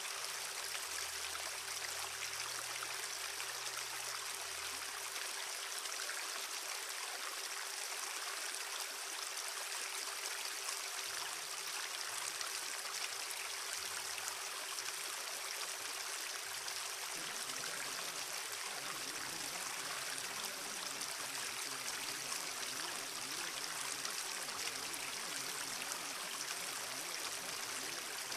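Steady rushing of flowing water, like a stream, unchanging throughout. A single faint steady tone is held underneath.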